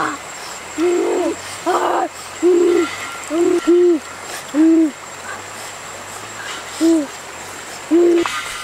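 Hand-whistle hoots blown through cupped hands: about nine short, owl-like notes at uneven intervals, some in quick pairs.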